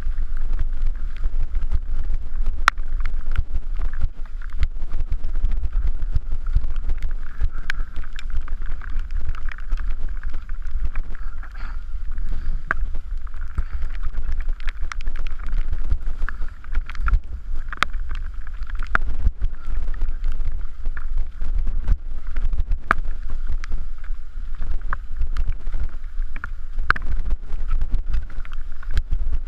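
Mountain bike descending rough wet singletrack at speed: wind rushing over the camera microphone as a constant low rumble, with frequent sharp clicks and knocks as the bike rattles over rocks and bumps.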